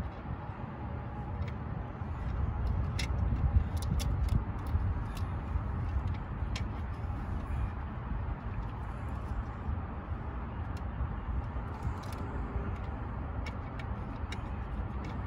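Scattered light clicks and taps of a hand tool on a Chevy distributor while its cap and rotor are being changed, over a steady low rumble.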